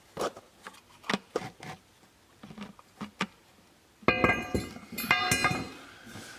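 Metal parts and hand tools knocking and clicking, then two loud ringing metallic clanks about four and five seconds in, metal struck on metal.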